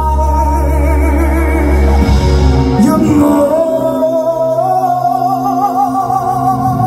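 Male singer singing live into a microphone over band accompaniment, through the venue's sound system; about halfway in he holds a long note with a wavering vibrato.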